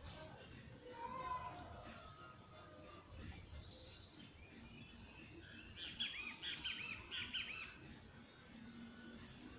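Small birds chirping: scattered short, very high chirps, with a quick run of arched, repeated notes about six to seven and a half seconds in.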